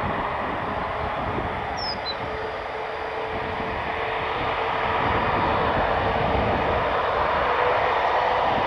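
Airbus Voyager KC3 tanker's Rolls-Royce Trent 700 turbofans running at low taxi power as the aircraft taxis toward the listener, a steady jet engine hum with a faint held tone, growing a little louder about halfway through as it comes closer.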